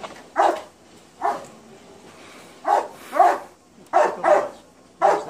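A dog barking repeatedly: about seven short, loud barks, some coming in quick pairs.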